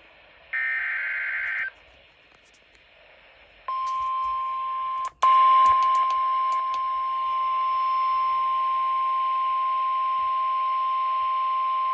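NOAA Weather Radio emergency alert: a short burst of warbling SAME data tones, then after a pause the steady 1050 Hz warning alarm tone. The alarm tone cuts out for a moment about five seconds in, then returns louder with a few clicks and holds steady.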